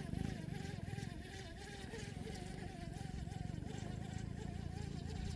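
Small boat engine running with a steady buzz and a wavering hum.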